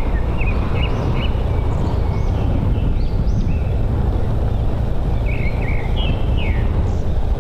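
Steady low rumble of a motorbike's engine and riding wind, with birds chirping again and again over it.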